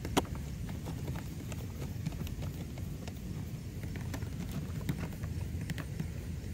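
Scattered light clicks and knocks from a hand handling a radio-controlled racing boat's hull, with one sharp click just after the start, over a steady low rumble.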